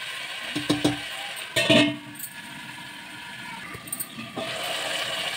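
A spoon stirring chicken and potatoes in an aluminium pressure cooker, knocking and ringing against the pot a few times in the first two seconds, then the steady sizzle of the curry frying.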